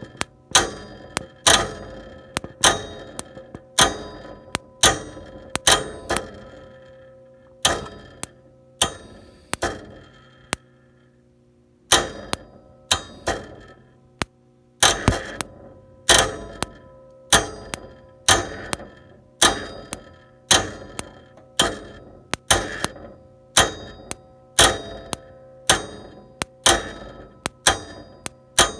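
Bryant gas furnace clicking over and over: sharp, ringing clicks about once a second, often in quick pairs, with a short pause about ten seconds in, over a faint steady hum. The furnace is failing to start because its inducer fan won't run, a fault traced to the inducer fan control board.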